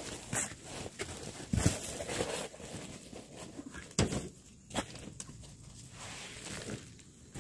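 Flattened cardboard boxes and a paper bag being handled and folded: rustling and crumpling, with a few sharp knocks and slaps, the loudest about one and a half and four seconds in.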